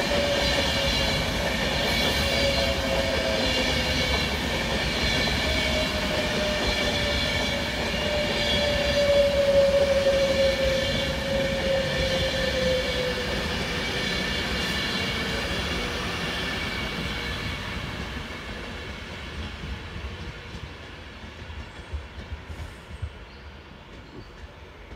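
Class 390 Pendolino electric train pulling into the platform and slowing, a whine that slowly falls in pitch over wheel and rail noise. The sound fades away about 18 seconds in as the train draws to a stand.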